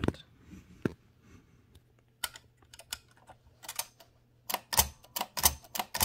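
Spacebar of a 1925 AEG Mignon 4 index typewriter pressed over and over, its escapement clicking as the carriage steps along. A few scattered clicks at first, then a quicker run of clicks in the second half.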